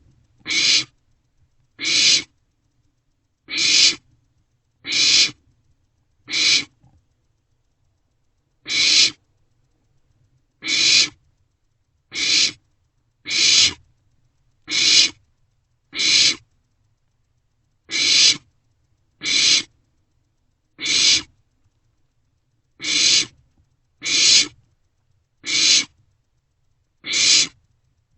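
Barn owlets giving a steady series of harsh, hissing screech calls, each about half a second long, one every second or two.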